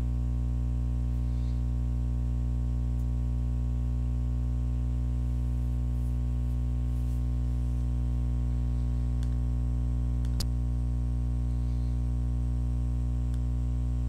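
Steady electrical hum with a stack of overtones, strongest in the bass and unchanging throughout, with a single sharp click about ten seconds in.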